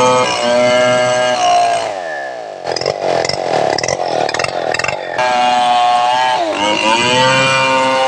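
Homemade two-stroke chainsaw, a Stihl 070 copy, running at high revs while ripping a medang log lengthwise, its pitch dipping briefly as it bogs in the cut. About two seconds in the revs fall away and the saw runs rough at low speed for about three seconds, then it is back on full throttle.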